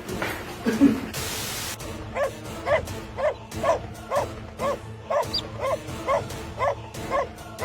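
A dog barking over and over, about two barks a second, starting about two seconds in and stopping near the end.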